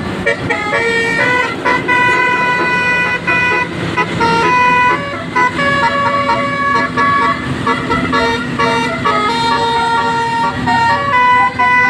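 Basuri bus's telolet horn, a set of horns playing a tune in a run of held notes that switch pitch in quick steps.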